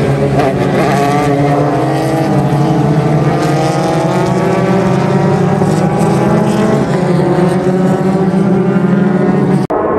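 Several JAF-F4 formula race cars' engines running as the field goes by, several engines at once, their pitch rising and falling as they pass and change speed. The sound breaks off abruptly just before the end.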